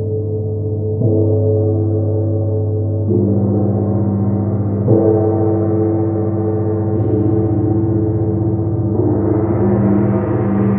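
Two large suspended gongs struck with mallets, giving a continuous ringing wash of many overlapping tones. New strokes swell the sound about a second in, around three and five seconds, and again near nine seconds.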